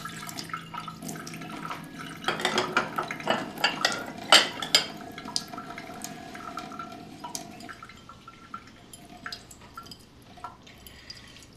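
Water running into a sink while dishes and bowls are washed, with a burst of clinking and clattering a couple of seconds in, then quieter trickling and occasional clinks.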